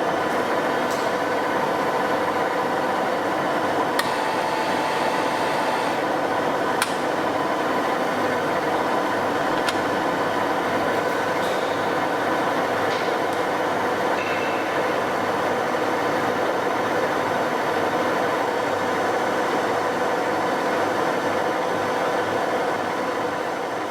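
TOS SUI 40 engine lathe running, a steady mechanical hum with a gear whine, and a few sharp clicks in the first ten seconds.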